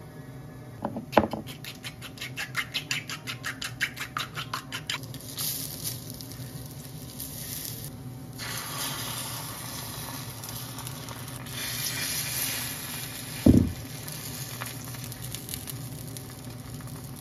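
An egg beaten with chopsticks in a ceramic bowl, a quick run of clicks about five a second, then the beaten egg sizzling as it is poured into a hot oiled rectangular tamagoyaki pan. One loud thud comes near the end.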